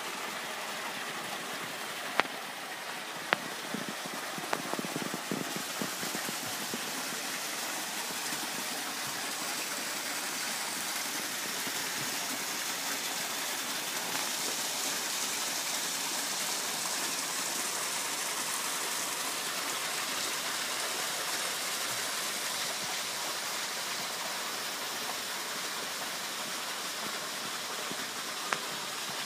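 Steady outdoor hiss, with a few sharp clicks and knocks in the first six seconds.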